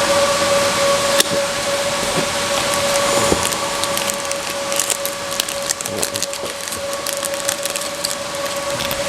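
Packaging being handled while unboxing graphics cards: a sharp click about a second in, then scattered crackles and clicks, over a steady rushing hiss with a constant whine.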